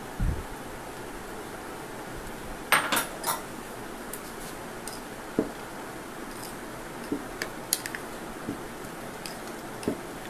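Steel strainer and glass bowl knocking together as soaked poha is tipped into curd and mixed: a dull bump at the start, a cluster of sharp clinks about three seconds in, then scattered light clicks.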